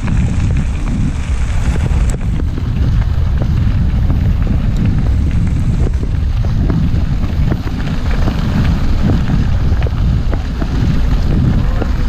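Wind buffeting the microphone of a bike-mounted camera, a heavy steady rumble, while a mountain bike rolls over a gravel road, its tyres crunching and small ticks and rattles scattered through.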